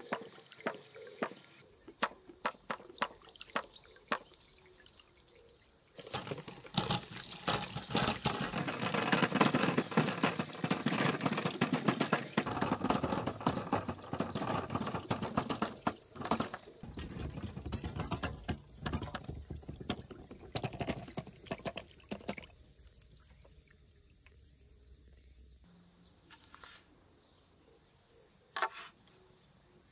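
Glass marbles and a larger ball rolling and clattering down clear plastic channels and pipes of a marble run. Scattered clicks give way, about six seconds in, to a dense rattle of many marbles at once. The rattle thins out over the next quarter minute to occasional clicks.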